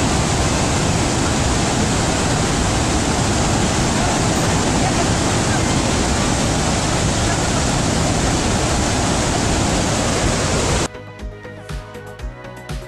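Victoria Falls roaring: a steady, loud rush of falling water. About eleven seconds in it cuts off suddenly and music with a steady beat starts.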